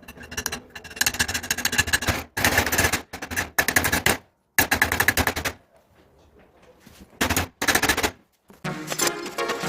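Arc welding crackling in several short bursts, each a half second to a second and a half long, with a gap of about two seconds before the last. Music comes in near the end.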